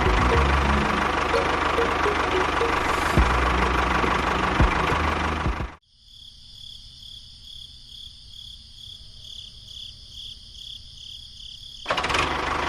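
A small machine motor running with a loud, rattling mechanical noise. About six seconds in it cuts off abruptly to a much quieter steady, pulsing high whine. The loud running noise comes back near the end.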